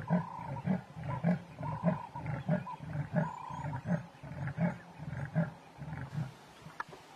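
Male leopard giving its sawing call, the territorial call of the species: a rhythmic series of rasping grunts, about one and a half a second, which stops about six seconds in.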